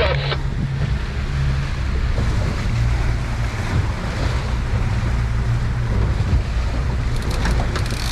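A motorboat's engine running with a steady low hum, under a constant rush of wind on the microphone and water along the hull. A few faint ticks come near the end.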